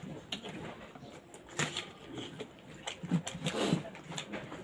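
People eating with their hands: irregular wet chewing and lip-smacking clicks, with small rustles of fingers working rice on a banana leaf.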